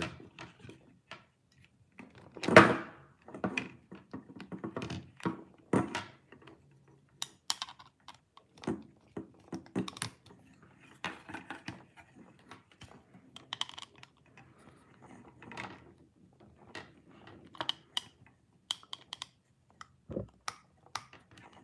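Screwdriver and plastic switch plate being handled while a wire is fastened under a switch's terminal screw: irregular small clicks and knocks, the loudest about two and a half seconds in.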